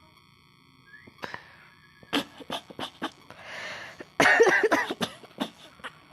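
A woman sniffing sharply several times and blowing out hard through her nose, trying to bring on a sneeze. About four seconds in there is a louder burst of voice.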